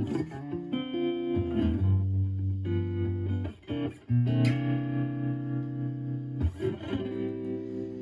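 Clean electric guitar (Stratocaster with HSH pickups) through a Joyo JF-09 analog optical tremolo pedal into a Marshall Valvestate amp's clean channel, with the tremolo at intensity 12, rate 2. Chords are strummed and left to ring, with a short drop in level about halfway through and a fresh chord struck just after, then another about six and a half seconds in.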